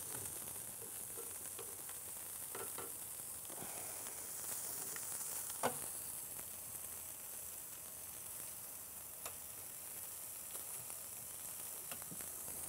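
Ribeye steak sizzling on a cast grill over hot wood coals in a wood-fired oven: a steady hiss with scattered crackles and clicks, the sharpest a little before halfway through. Fat from the steak drips through onto the coals below.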